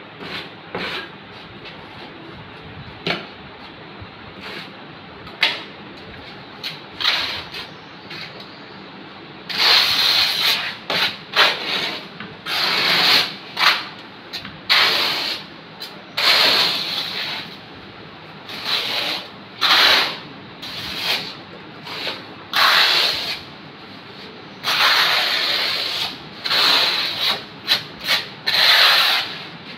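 Steel notched trowel scraping and combing cement mortar across the back of a large porcelain tile in repeated strokes about a second apart, back-buttering the tile before laying. Before the strokes start, about a third of the way in, a few sharp clicks of the trowel scooping mortar from a bucket.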